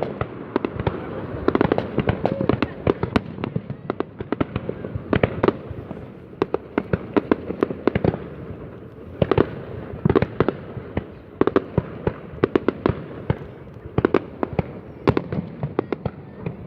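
Aerial fireworks bursting: a continuous, irregular volley of sharp bangs, several a second, over a steady crackling background.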